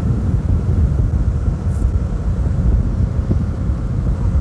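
Small boat's engine running steadily under way, with wind rumbling on the microphone.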